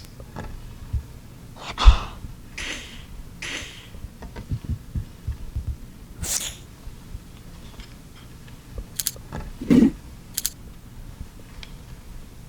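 Foley breaths and sharp exhalations, a heavy thump about two seconds in, and a short grunt near the end, with scattered light clicks and taps between them.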